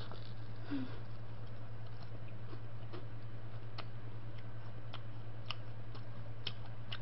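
A person biting and chewing fried chicken, with faint crisp clicks every second or so over a steady low hum.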